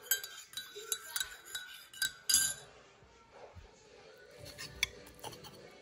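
Metal cutlery clinking against ceramic plates: a quick run of sharp clinks over the first couple of seconds, then a few scattered clinks near the end.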